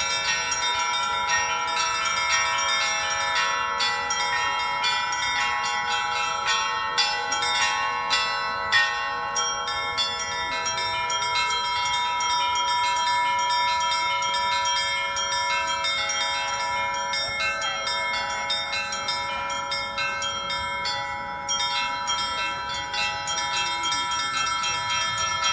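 Russian bells rung by hand by a bell ringer: many bells struck in a fast, continuous pattern, their tones ringing on and overlapping. The strikes are loudest and densest in the first few seconds.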